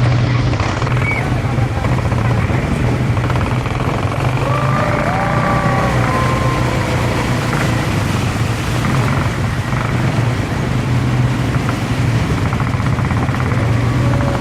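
Motor vehicle engine running steadily with a low hum under a rushing noise. A few short gliding tones come over it about four to six seconds in.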